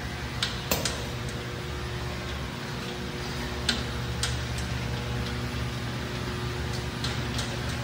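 Factory assembly conveyor running with a steady low hum as a board travels across a transfer section, with scattered light clicks and knocks from the conveyor; the hum grows a little louder about four seconds in.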